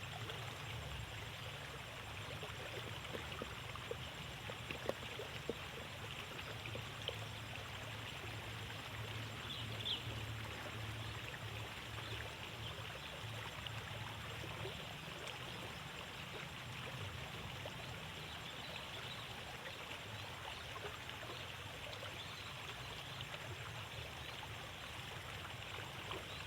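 Steady rushing of water flowing along a narrow rice-field ditch, with a few faint ticks.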